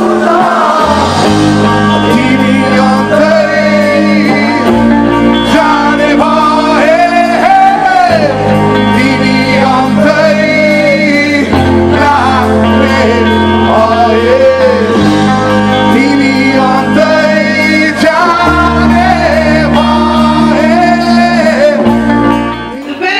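Rock band playing live: electric guitars, bass and drums under a sung vocal line, the bass moving to a new held note every three to four seconds.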